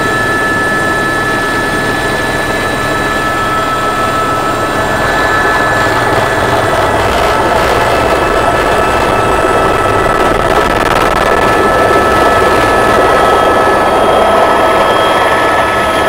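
Helicopter in flight heard from inside the cabin: loud, steady engine and rotor noise with a thin, steady high whine.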